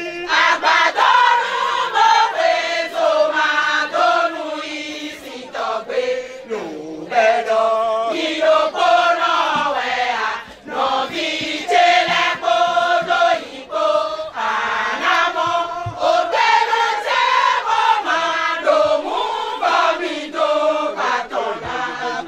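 A chorus of women singing a chant together.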